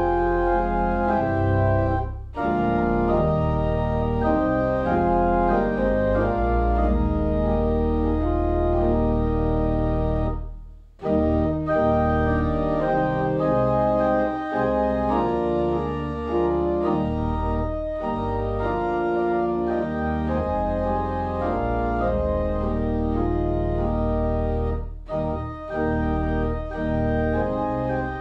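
Church organ playing slow, sustained chords, with brief pauses between phrases, the longest about ten seconds in.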